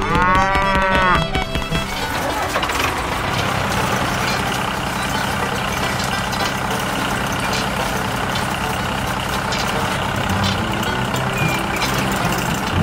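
A cow moos once, a long call in the first second or so. Then a steady mechanical running noise takes over as a miniature rotary brush sweeper spins.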